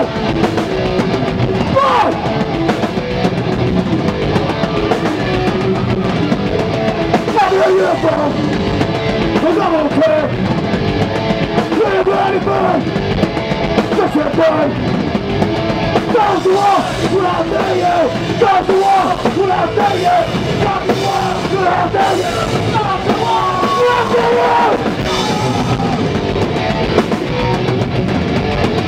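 Punk rock band playing live: a singer's vocals into a microphone over electric guitar and a drum kit, loud and steady.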